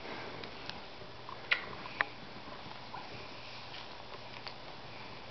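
A pet rat being handled and moving about on a lap: a few scattered small clicks and scratches over a steady background hiss.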